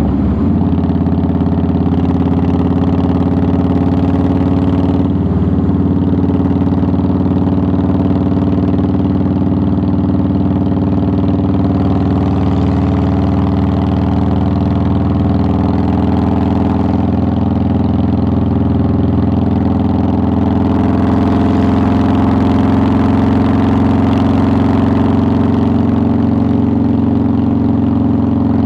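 2009 Harley-Davidson Softail Deluxe's air-cooled Twin Cam 96 V-twin running steadily under the rider, its pitch holding nearly level with only small rises and falls.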